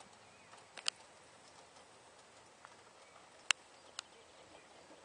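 Pony trotting on grass in harness, pulling a carriage: faint hoofbeats with a few sharp clicks, the loudest about three and a half seconds in.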